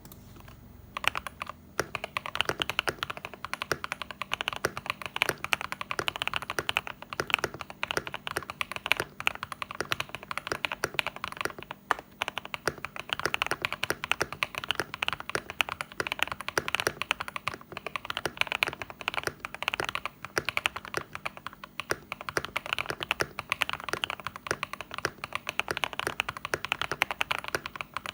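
Mod007 mechanical keyboard with Fantasy Virus switches and ASA BOW keycaps, typed on quickly and continuously with thocky keystrokes. A few separate key presses come first, and steady fast typing starts about two seconds in.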